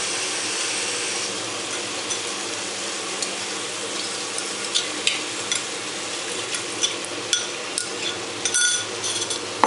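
Spiced vegetables sizzling steadily in hot mustard oil in a cooking pot. From about three seconds in, scattered clicks and scrapes come from a bowl and spoon against the pot as a little water is poured in, with more of them near the end.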